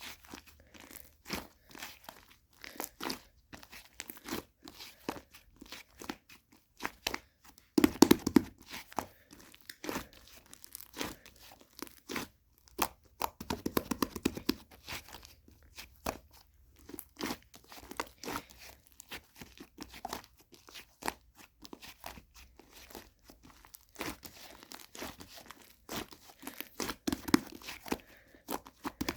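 Slime being pressed, squeezed and stretched by hand, giving a string of small crackling clicks and pops. Denser, louder runs of crackles come about eight, fourteen and twenty-seven seconds in.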